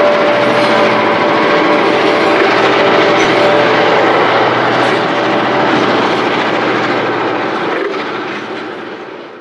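Steady rumble and clatter of a long train of grain hopper wagons rolling past on the rails. A steady ringing note is heard over it for the first few seconds. The sound fades out near the end.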